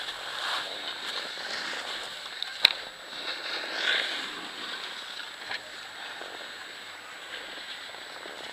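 A rider sliding and scraping over packed, tracked snow, with one sharp knock about two and a half seconds in, then settling to a quieter steady hiss once the rider stops.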